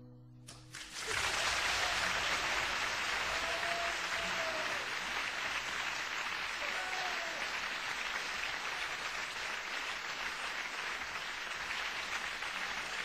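A small crowd applauding at the end of an acoustic guitar song: the last guitar note dies away, and clapping starts about a second in and goes on steadily, with a couple of voices calling out.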